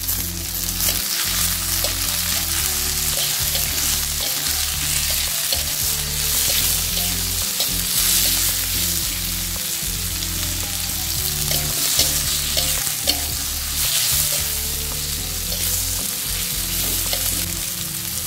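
Tomato wedges, onion, shallots and chilies sizzling in hot oil in an aluminium wok, stir-fried with a metal spatula that scrapes against the pan again and again.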